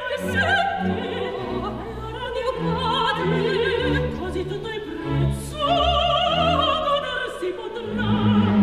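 Operatic singing with vibrato over a full orchestra.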